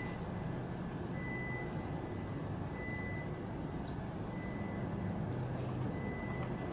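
Steady low background rumble with a faint high electronic beep repeating about every second and a half.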